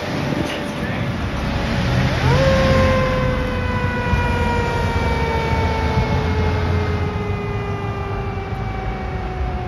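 Fire engine's mechanical siren, responding and moving away: a wailing tone that slides slowly down, is wound back up sharply about two seconds in, then slowly falls again. Low traffic rumble underneath.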